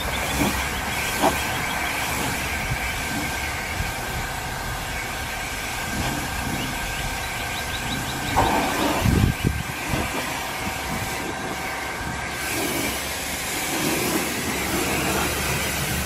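Eco Rinse pressure washer wand spraying water onto a car at a low 1,100 PSI: a steady hiss with a steady whine in it from the machine. A few low knocks come between about eight and ten seconds in.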